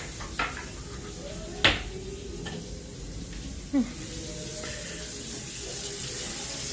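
Steady rush of running water from a kitchen tap, growing slightly louder toward the end, with three sharp clicks, the loudest a little under two seconds in.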